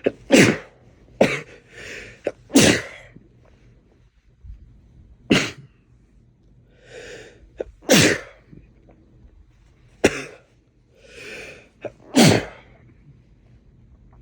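A man sneezing repeatedly in a fit, about seven forceful sneezes a second or two apart. Several come after a drawn-in breath.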